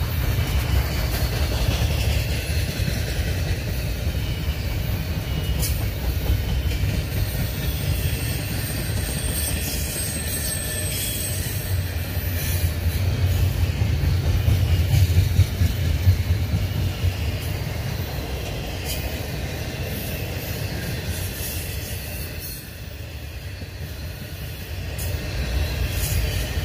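Double-stack intermodal well cars rolling past: a steady low rumble of steel wheels on rail, with scattered clicks and knocks. A thin high wheel squeal sounds for a few seconds about eight seconds in, and the rumble swells about thirteen to sixteen seconds in.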